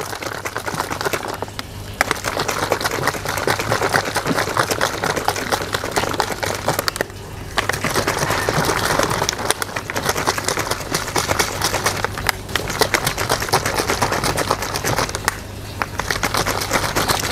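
A plastic bottle of raw egg, sugar and drinking yogurt being shaken by hand, the liquid sloshing and rattling fast inside, with a few brief pauses. The shaking dissolves the sugar into the mixture.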